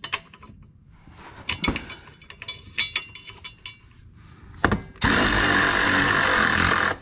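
A few light metallic clinks and rattles from a socket and extension being handled against the step bracket, then a sharp knock, and near the end a Milwaukee cordless impact wrench runs hard for about two seconds, snugging a step-mount bolt, and stops suddenly.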